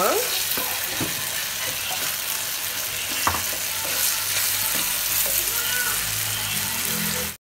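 Onion, tomato, potato and dried fish frying in oil in a clay pot, sizzling steadily while a wooden spatula stirs them, with small scrapes and knocks against the pot.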